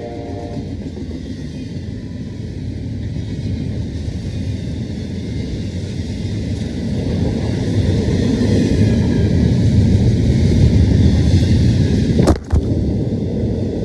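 Freight train passing close by: the deep rumble of the locomotives and rolling cars grows louder, peaking about eleven seconds in, after the last of a train horn's chord dies away at the start. The sound briefly cuts out near the end.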